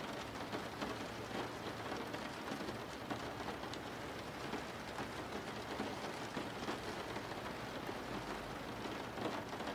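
Steady rain falling, an even rushing hiss with a few faint drips standing out.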